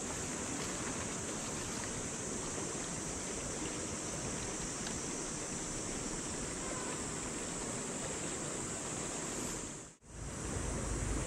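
Steady outdoor rushing noise of wind on the microphone, with a constant high hiss above it. The sound drops out briefly about ten seconds in, then returns with more low rumble.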